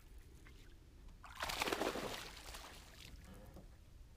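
A hooked bass splashing at the surface beside the boat as it is reeled in: one burst of splashing about a second and a half in, lasting about a second.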